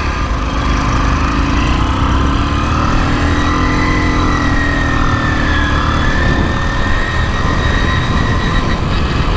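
A 49cc motorized bicycle engine running while the bike rides along, its pitch rising and falling gently a few seconds in, under a heavy rumble of wind on the microphone.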